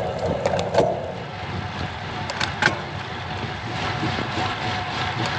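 Steady rushing noise of a road bike in motion on asphalt, picked up by a bike-mounted GoPro, with a few sharp clicks or knocks about half a second and about two and a half seconds in.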